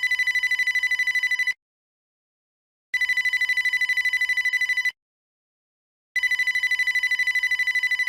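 Old-style digital telephone ringtone: a high electronic tone pulsing rapidly, about ten beats a second. It sounds in three rings of about two seconds each, separated by short pauses.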